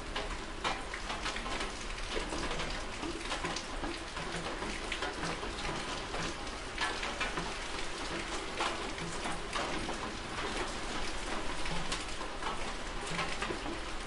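Steady rain falling, with many individual drops pattering on a surface close by.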